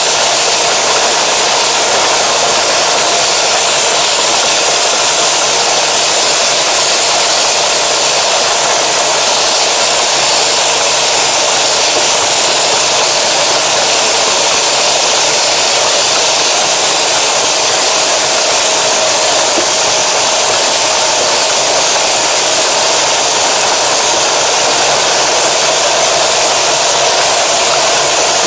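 Tractor running steadily with its ridging attachment, a loud, even drone with a hiss over it, heard through a plastic bag wrapped over the camera.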